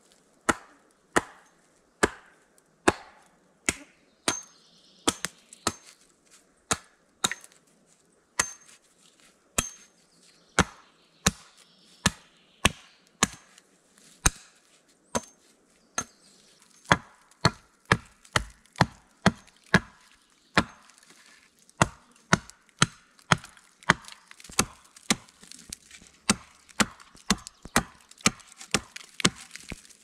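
Axe chopping wood in sharp, regular strokes, a little more than one a second, quickening to about two a second in the second half.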